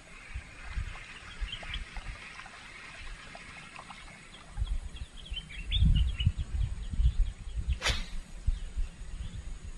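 Birds chirping steadily. From about halfway there are low thuds and rumbles, and about eight seconds in there is one sharp click.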